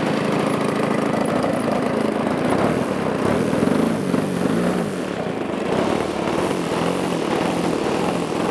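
Engine of a large radio-controlled aerobatic model plane running on the ground. Its pitch rises and falls a few times as the throttle is worked about halfway through, then runs steady while the plane moves off across the field.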